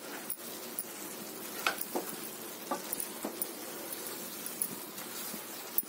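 Kalakand milk mixture sizzling and bubbling in a nonstick pan as a wooden spatula stirs it, with a few light clicks. The last of its water is cooking off.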